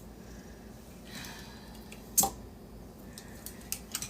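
Hands working parts loose inside a server's metal chassis: one sharp metallic click about two seconds in, then a few faint ticks near the end.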